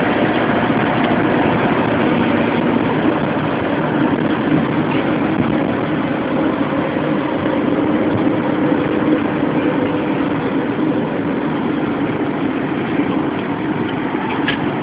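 Motorhome cab at autobahn speed: the engine's steady drone mixed with tyre noise on the wet road.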